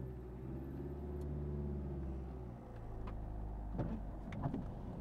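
Car engine pulling away gently in first gear under light throttle from a learner driver. The engine note dips briefly a little past halfway, then picks up again, with a few faint ticks near the end.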